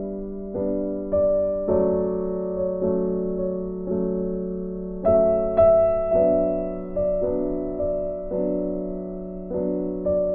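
Background music: a slow, gentle piano piece, chords struck about once a second and each fading away, with a brighter, louder chord about five seconds in.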